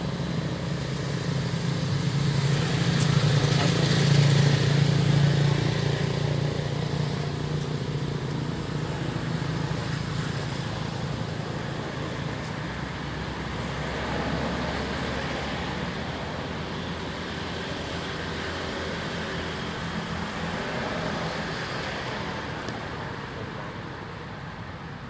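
A motor vehicle's engine running, a steady low hum that swells about three to five seconds in and then slowly fades.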